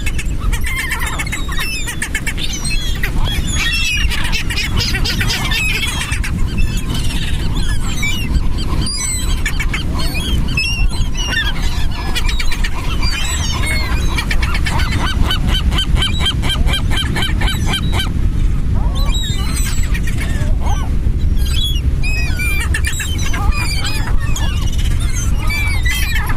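A flock of seagulls calling over and over, many overlapping squawks and cries, with a run of quick repeated calls midway, over a steady low rush.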